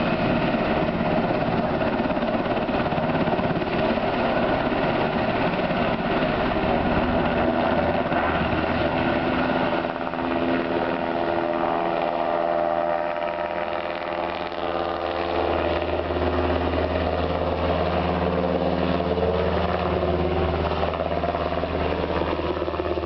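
UH-60 Black Hawk helicopter's turbines and rotor running loudly as it lifts off and climbs away. About halfway through, a whine rises in pitch and then settles into a steady low drone.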